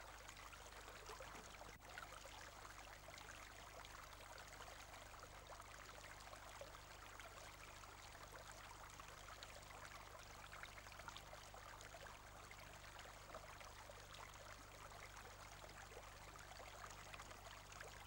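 Near silence: faint, even hiss with a low steady hum.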